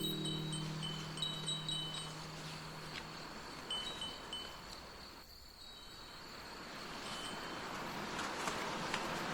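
Bear bell tinkling in short, irregular rings while the hiker walks, over a steady outdoor hiss. A low ringing tone fades out over the first three seconds.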